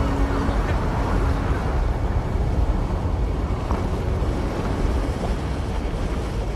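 Steady low rushing roar of towering walls of parted sea water. A few held music notes fade out about half a second in.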